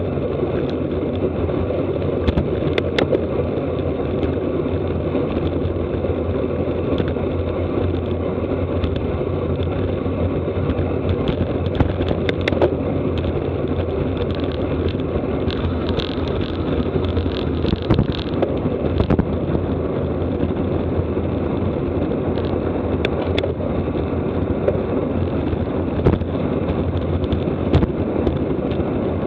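Wind rushing steadily over the microphone of a camera carried on a bicycle at racing speed, with scattered sharp clicks and rattles.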